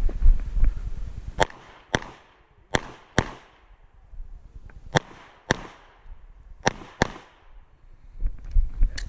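Glock 47 9 mm pistol firing about nine shots, mostly in quick pairs about half a second apart, with pauses of a second or more between pairs. A low rumble rises and falls at the start and again near the end.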